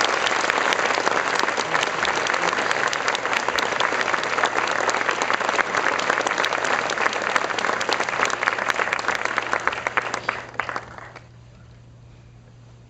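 Theatre audience applauding, a dense steady clapping that dies away about eleven seconds in, leaving quiet room hum.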